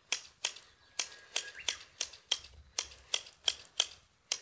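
Hand scissors snipping buckwheat sprouts at ground level during harvest: a quick, even run of sharp snips, about three a second.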